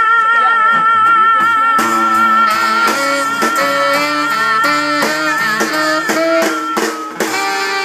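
Live band music: a woman sings one long high note with vibrato over acoustic guitar and drums, the band striking changing chords under it from about two seconds in. The held note ends about a second before the close, leaving the band's chord.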